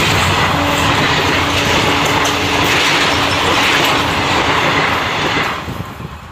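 ICF passenger coaches rushing past at speed, their wheels rumbling and clattering over the rail joints. The noise falls away sharply about five and a half seconds in as the last coach goes by.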